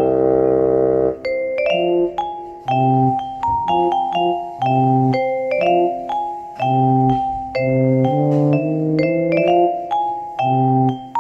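Instrumental background music: a light melody of struck, bell-like mallet or keyboard notes in a steady rhythm over high ticking percussion.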